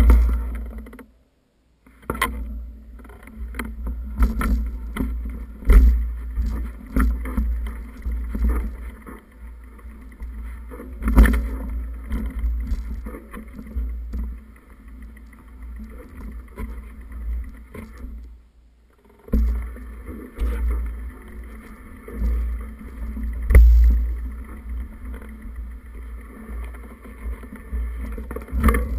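Wind buffeting a body-worn camera's microphone as it moves fast along a dirt woodland trail: a heavy, uneven rumble broken by frequent knocks and rattles. The sound cuts out briefly twice, about a second in and a little past the middle.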